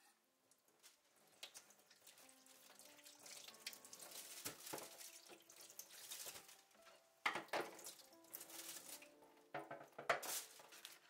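Water from a kitchen tap running and splashing in a stainless sink, with two sharp knocks in the second half.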